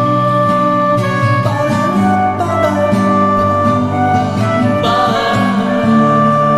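Instrumental break of a song: guitar accompaniment with sustained tones above it, the chords changing every second or so.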